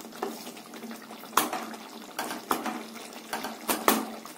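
Spatula stirring thick curry gravy in a non-stick kadai: wet stirring sounds with several sharp knocks of the spatula against the pan.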